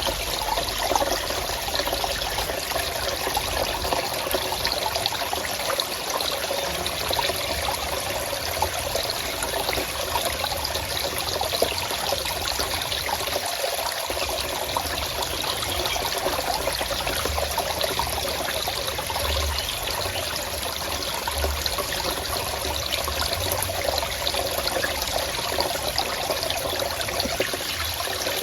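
Water of a forest stream or small cascade trickling and splashing over rocks in a steady, dense rush.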